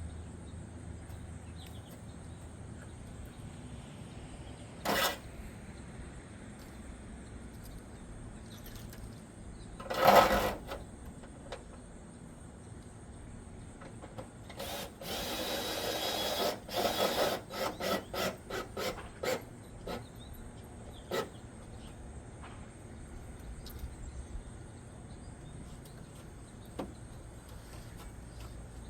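Cordless drill driving a gutter screw: one run of about two seconds, then a string of short bursts as the trigger is pulsed to seat the screw. A loud knock comes a few seconds earlier, with scattered clicks around it.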